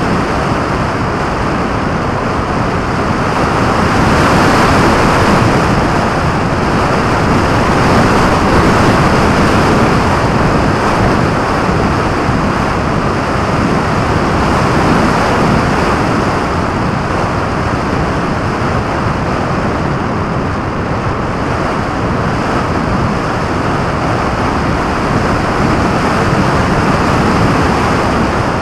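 Airflow rushing over the microphone of a camera mounted on a radio-controlled model plane in flight: a loud, steady rush that swells and eases a little as the plane manoeuvres.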